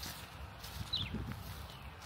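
Footsteps of a person walking on dry grass and earth, soft and regular, with a single short high chirp that falls in pitch about a second in.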